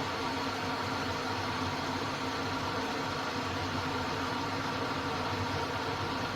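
Aigostar Adam 30GOM glass electric kettle heating water: a steady, even noise that does not change.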